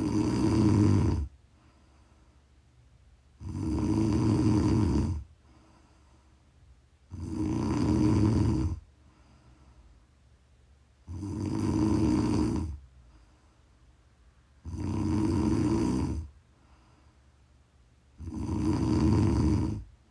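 A woman snoring loudly and regularly: six long, rattly snores, one about every four seconds, with quiet breaths between them.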